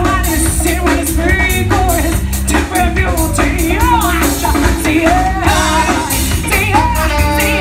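Live band playing: a woman singing lead over drums, bass guitar and horns (trombone and saxophone), with a steady beat.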